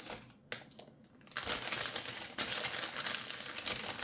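Small plastic LEGO pieces clicking and rattling as they are handled and picked out by hand: a couple of single clicks at first, then a dense run of clattering from about a second and a half in.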